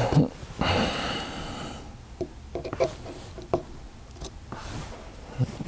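A short rustle, then scattered light metallic clicks and taps of a small screwdriver working on the metal action of an FX Wildcat air rifle while the magazine lever spring is being removed.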